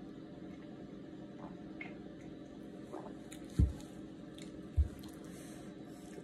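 Faint gulps and small clicks of drinking from a can, then two dull thumps on the table about a second apart, over a steady low hum.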